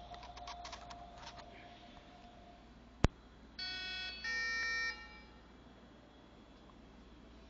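A sharp click, then two short electronic start-up tones, each about half a second long, from the foam RC jet's electronic speed controller as it powers up.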